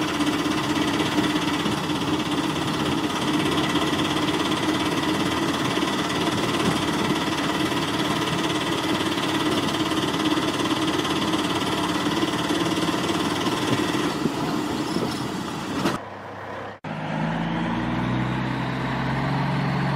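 Vehicle engine running steadily at idle, with a pulsing, knocking character. About sixteen seconds in it breaks off briefly and gives way to a lower, steady pitched hum.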